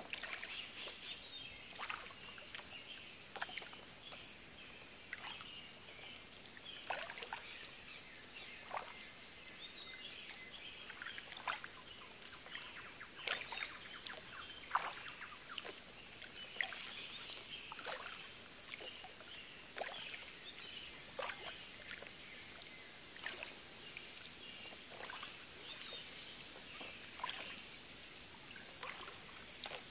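Small irregular splashes of calm seawater lapping against the hull of a slowly gliding boat, a few each second at uneven spacing. Under them runs a steady high insect drone from the shore.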